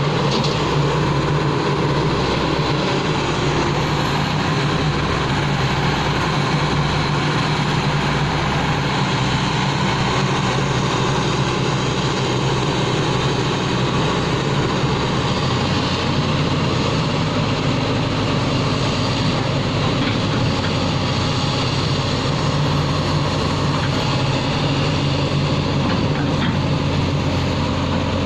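Backhoe loader's diesel engine running steadily, with its low note changing about halfway through.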